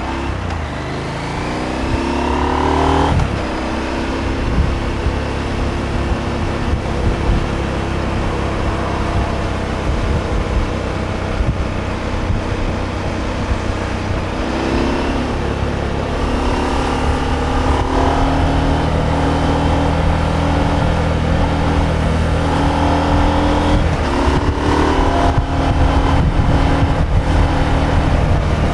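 KTM 890 Adventure's parallel-twin engine under way: it revs up, drops in pitch at an upshift about three seconds in, then runs at a mostly steady speed, with two more brief rises in revs later on.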